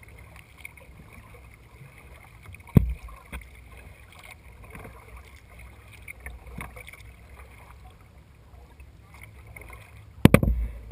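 Kayak paddling on calm water: quiet paddle strokes with small ticks, a single sharp knock about three seconds in, and a cluster of low thumps and knocks near the end.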